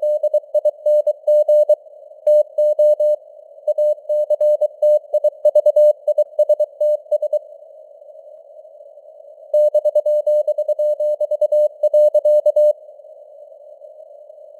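Morse code (CW) at about 23 words per minute, sent as a single keyed tone over a narrow band of hiss from simulated radio noise. The keying breaks off for about two seconds halfway through, resumes, and stops near the end, leaving only the hiss.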